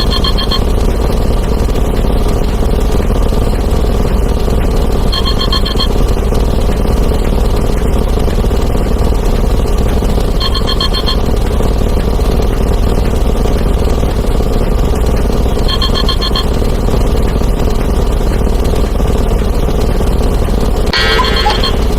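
A dense, steady din of many overlapping sound effects, explosions and breaking glass among them, stacked into one continuous rumble. A short ringing tone, like a phone ring, comes in about every five seconds. Near the end a faster alarm-clock ringing joins in.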